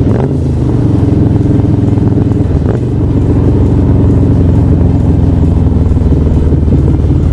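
Harley-Davidson Sportster 1200's Screamin' Eagle Stage IV–tuned air-cooled V-twin running under way as the bike is ridden down the road. The steady engine note breaks briefly twice, about a quarter second in and near three seconds.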